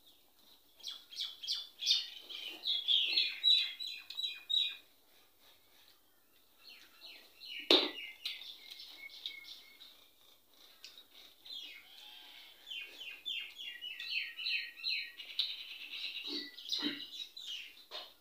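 Small birds chirping in two long runs of quick, repeated high calls, with a single sharp click about eight seconds in.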